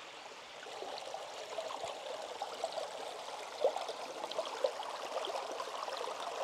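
Shallow forest creek running and splashing over rocks. The sound is steady, and it gets louder about a second in.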